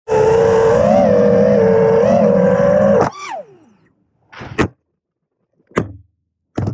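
FPV quadcopter's brushless motors and propellers whining steadily under throttle, pitch wavering slightly. About three seconds in the throttle is cut and the whine falls away in pitch, followed by three short throttle blips.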